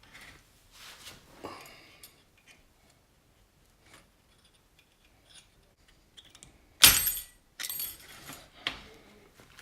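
Metal fork parts and tools clicking and scraping as the BMW R80 fork spring is held compressed and the top cap's circlip is worked into place. About seven seconds in comes a loud, sharp metallic clank with a ringing tail, followed by a few more clatters.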